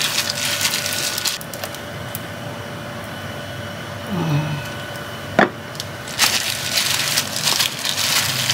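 A plastic-gloved hand mixing sliced boiled beef with soy sauce in a bowl: wet squishing and crinkling of the glove. It goes quieter midway, with one sharp click about five and a half seconds in, and the mixing picks up again for the last couple of seconds.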